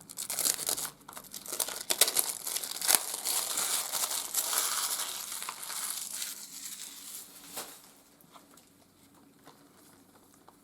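Plastic wrapping on a Blu-ray case crinkling and tearing as it is handled and pulled off, with a few sharp clicks. It dies away about three-quarters of the way through, leaving a few faint clicks.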